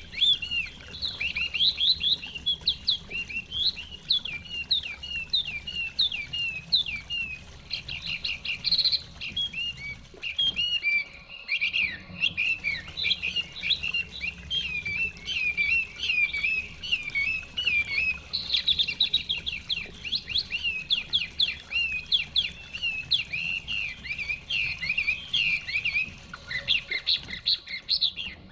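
Chinese hwamei (họa mi) songbirds singing a dense, rapid run of varied whistled and chirping notes, with a short lull about a third of the way in.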